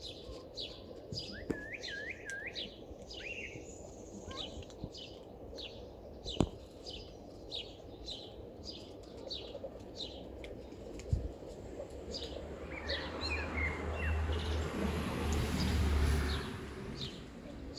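Small birds chirping over and over with short, high notes. Near the end a low rumble swells and fades, and it is the loudest sound.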